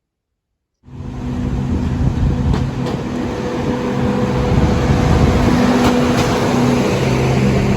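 A train passing close by, loud and steady with a low engine drone. Pairs of wheel clicks over the rail joints come through twice. The sound cuts in abruptly just under a second in.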